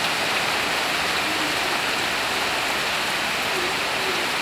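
Heavy tropical rain pouring down on a wet yard and nearby roofs: a steady, even hiss with no let-up.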